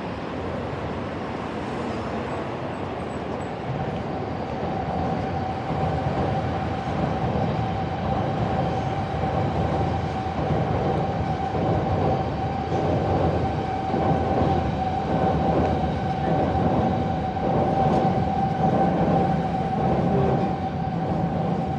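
A train running past, getting louder about four seconds in, with a steady whine over a rhythmic clatter of wheels.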